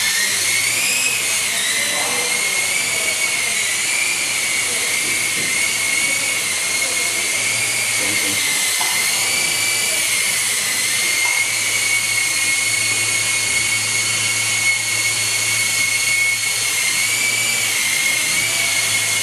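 Small electric motor and rotor of a toy helicopter running at speed: a steady high-pitched whine whose pitch wavers slightly.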